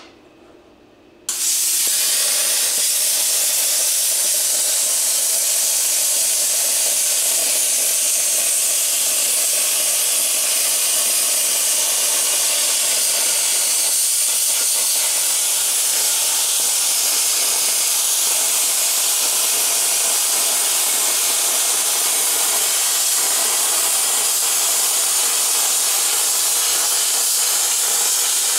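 Plasma cutter cutting through a metal bumper: after a brief click, a loud, steady hiss of the air-plasma arc sets in about a second in and holds without a break.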